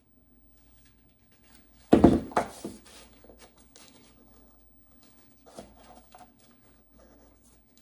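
Handling noise from working on a small wooden picture frame: a quick cluster of knocks and clatter about two seconds in, then scattered small clicks and rustles.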